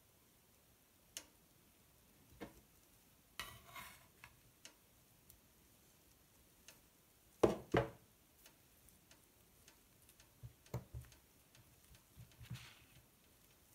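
Faint food-handling sounds: a metal spatula scraping and tapping on a slate serving board while a thin pancake is lifted and folded, with scattered light clicks and a brief scrape. The loudest moment is two knocks close together about halfway through.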